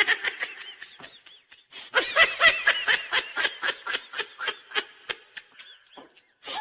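High-pitched giggling laughter in quick short rising-and-falling bursts, about five a second, in two runs with a brief lull between them, trailing off near the end.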